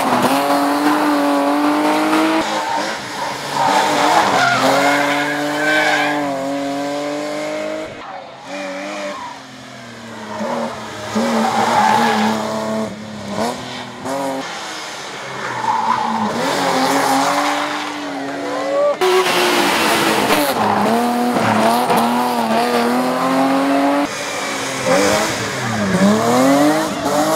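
BMW E30 hillclimb race car's engine revving hard through corners, its pitch climbing and dropping with throttle and gear changes, with tyres squealing as the car slides. The engine note breaks off abruptly several times where separate passes are cut together.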